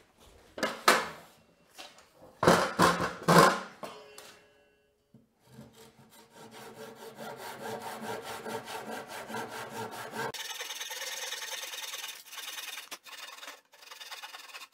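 A few loud knocks in the first four seconds, then a hand saw cutting through a pressure-treated 2x6 board with quick, even strokes from about five seconds in. About ten seconds in, the sawing loses its low end and turns thinner and brighter.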